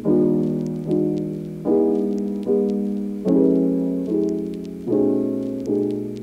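Background music: a gentle solo piano playing soft chords, one struck about every second and left to ring and die away.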